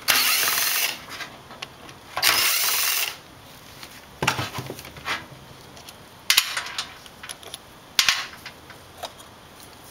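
Cordless drill/driver running in two short bursts of about a second each, unscrewing the float-bowl nut of a Nikki carburetor. A few sharp knocks and clicks of parts being handled follow.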